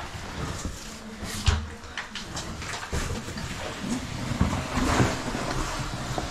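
A caver's clothing, boots and gear scraping and shuffling against cave rock while climbing down a tight passage, with scattered knocks and clicks and a sharper thump about one and a half seconds in.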